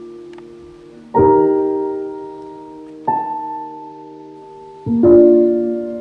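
Background music: slow piano chords, struck about a second in, again around three seconds in, and again near five seconds, each left to ring and fade.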